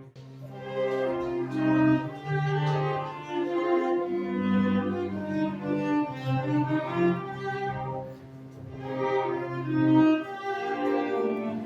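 A small instrumental ensemble playing, led by bowed strings with violin and cello, in long sustained notes. The music eases off about two-thirds of the way through, then swells again.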